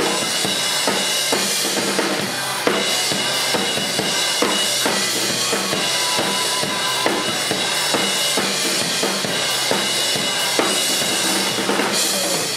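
Acoustic drum kit played hard and fast: kick and snare hits under a constant wash of crash and ride cymbals, over a pop-rock backing track.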